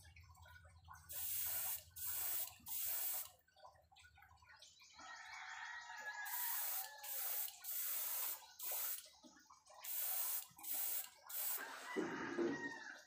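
Airbrush spraying paint onto micro jig lures in about ten short bursts of hiss, each half a second or less. Three bursts come first, then a pause of a couple of seconds, then a quicker run of the rest.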